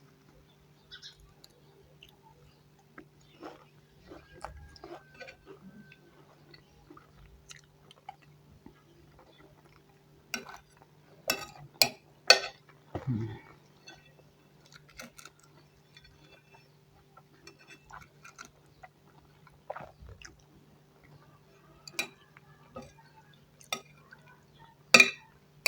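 Close-up eating sounds of macaroni and fish being chewed: soft wet chewing and mouth smacks with scattered sharp clicks, busiest about halfway through, over a faint steady hum.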